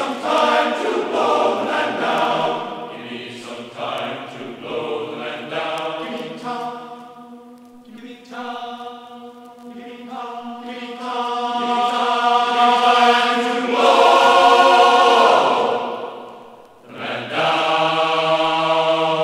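A choir singing in long held notes, several voices together, with a short break near the end before a final held chord.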